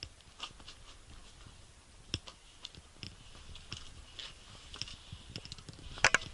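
Footsteps crunching on loose volcanic rock and gravel while walking downhill: irregular clicks and scrapes, with a louder double crunch near the end.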